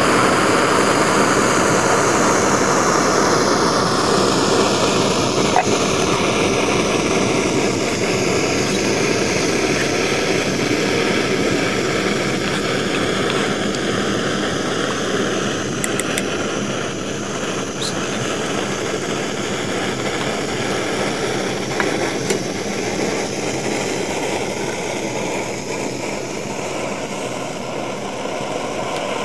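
Portable canister gas stove burner running: a steady, loud hiss-roar of burning gas whose tone shifts slowly, with a few light clicks along the way.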